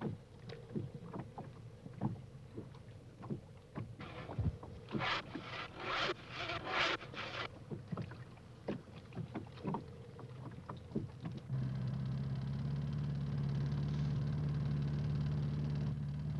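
Irregular knocks and clatter of gear being handled at a weir pile-driver rig, with a run of louder rattling bursts about five to seven seconds in. About eleven seconds in, a steady low engine hum takes over.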